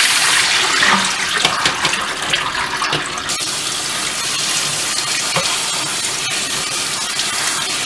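Brine and diced cucumbers and onions pouring from a bowl into a stainless mesh colander in a sink, then a kitchen tap running steadily over the vegetables as hands toss them in the colander. The pour is louder, and after about three seconds the steady tap takes over.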